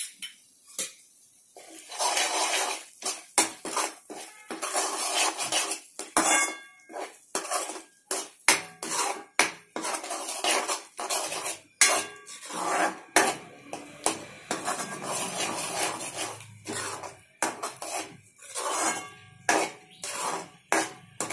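Metal spoon scraping and clinking against a metal kadai as thick masala gravy is stirred, in many quick, uneven strokes that begin about two seconds in.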